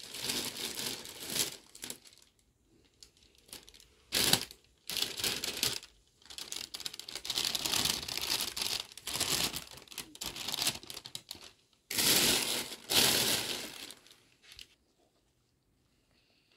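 Thin plastic carrier bags rustling and crinkling as they are handled and opened, in irregular bursts, stopping about two seconds before the end.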